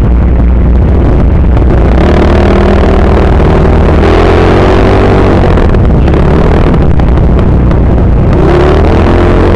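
Yamaha Mio Sporty scooter's stock engine, fitted with a 28 mm Keihin carburettor, pulling away from a stop. The engine note swells and rises about two seconds in, eases off, and climbs again near the end.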